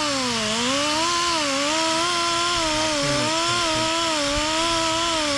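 Electric power tool spinning a worn abrasive pad against the head gasket surface of a Honda Civic cylinder head, its motor whine sagging and recovering as pressure on the pad changes, with the hiss of the pad scrubbing the metal.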